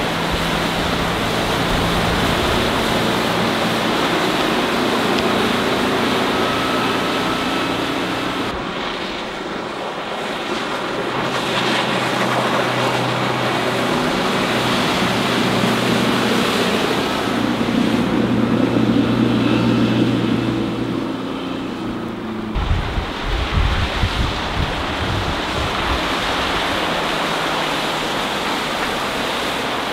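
Volvo Penta KAD32 diesel sterndrive of a passing sports cruiser running at speed: a steady engine drone over the rush of its wake, loudest a little past halfway. About two-thirds of the way through the engine tone drops out and gusty wind rumble on the microphone takes over.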